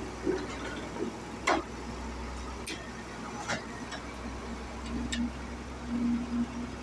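Excavator's diesel engine running steadily while it holds a concrete pipe slung on a chain, with a few sharp clicks spaced a second or so apart.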